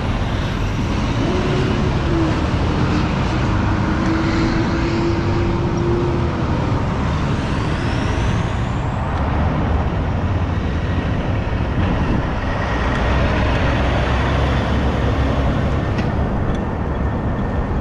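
Diesel semi-trucks with trailers driving past one after another over steady road traffic noise. A steady hum holds for about five seconds near the start, and a rising whine comes a little later.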